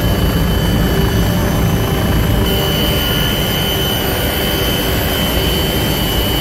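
Helicopter cabin noise: a steady, loud engine and rotor drone with a constant high whine, heard from inside the cabin.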